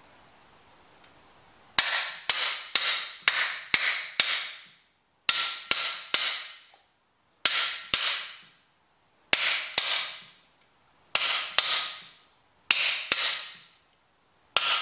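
Hammer blows on a cam bearing installer bar, driving a new cam bearing into the cam bore of a Vortec 4.3 V6 block. The blows are sharp, ringing metal strikes that come in bursts of two to five, with short pauses between.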